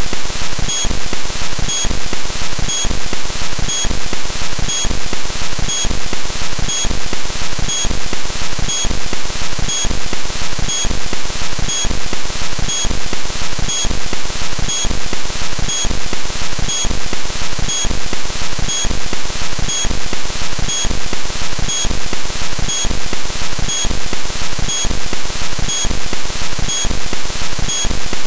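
Loud, steady static-like hiss with a faint even rhythm repeating about once a second, like a heavily noisy music loop.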